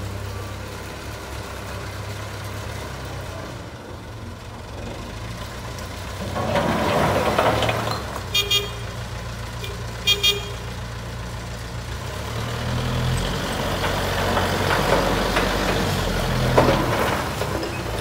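JCB 3CX backhoe loader's diesel engine running and working, louder in the middle and again toward the end. Around the middle, a horn gives two short double toots.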